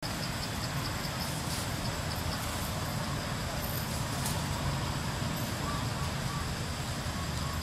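Steady outdoor rumble like distant road traffic, with a string of short, high chirps, a few a second, in the first two seconds or so.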